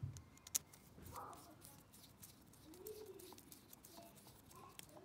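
Faint small clicks and scrapes of a screwdriver turning the terminal screws of a plastic cable junction box, tightening them onto the wires. A faint bird call rises and falls about three seconds in.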